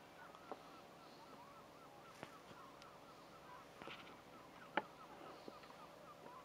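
Faint calling of a distant flock of birds, many short calls a second, with a few light knocks, the sharpest about five seconds in.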